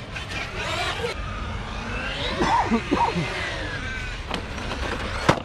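Radio-controlled truck's electric motor whining, its pitch rising and falling as it is throttled, over a low rumble. Two sharp knocks land near the end; the second is the loudest thing here.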